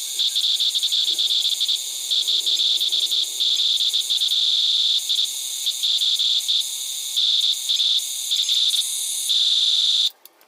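High-pitched whine of a toy RC excavator's small electric motors and gearboxes, starting and stopping in short spurts as the controls are worked. It cuts off suddenly near the end.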